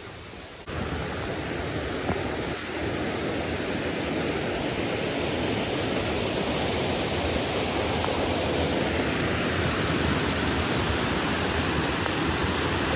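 Mountain stream rushing over rocks in small cascades: a steady rush of water that grows slightly louder.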